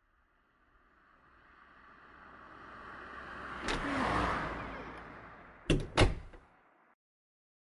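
A car driving past, its noise swelling to a peak about four seconds in and then fading away, with a knock near the peak. Near the end come two sharp thumps in quick succession, the loudest sounds here.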